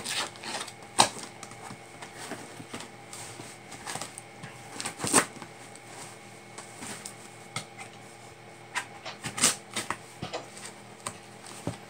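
Cardboard shipping box being worked open by hand: scattered clicks, scrapes and rustles of cardboard and packing tape, with sharper knocks about one, five and nine and a half seconds in.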